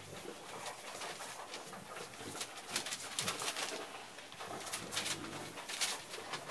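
English bulldog puppies grunting as they play-fight, with many short scratches and rustles scattered throughout.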